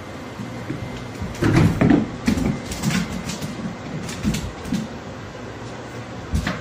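A cat scrambling and skidding on a hardwood floor and bumping against a door: bursts of thumps and scrapes about a second and a half in and again around four seconds, then a sharp knock near the end.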